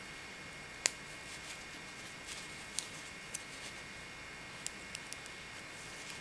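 Metal knitting needles clicking against each other as stitches are worked: one sharp click about a second in, then several lighter, irregular clicks, over a steady low hiss.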